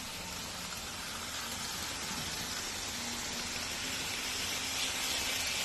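N scale model trains running on the layout track: a steady whirring hiss of small wheels and motors with a faint low hum, growing a little louder toward the end.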